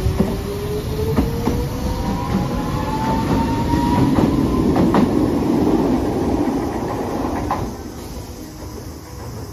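Hiroden 3950-series 'Green Liner' articulated tram pulling away, its motors whining up in pitch as it gathers speed, with wheel clicks over the rail joints. The sound is loudest about four to six seconds in and falls off sharply near the end as the tram moves away.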